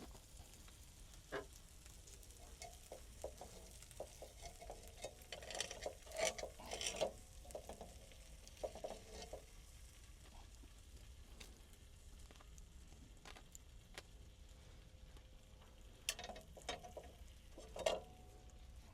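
Food sizzling in a pan over a camp fire, with scattered clicks and scrapes of utensils. The sound is busiest about five to seven seconds in and again near the end.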